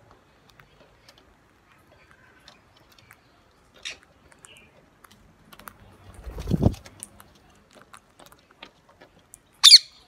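Rose-ringed parakeets feeding on seed: scattered small clicks of beaks pecking and cracking grain, a short call about four seconds in, a low rumble around six to seven seconds, and one loud harsh squawk near the end.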